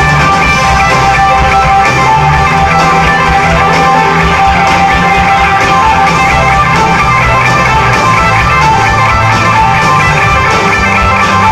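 Live rock band playing loudly: electric guitars strummed over drums and bass.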